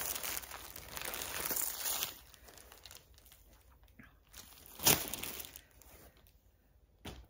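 Clear plastic bag crinkling as it is handled, busy for the first two seconds, then quieter with a sharp crackle about five seconds in and another near the end.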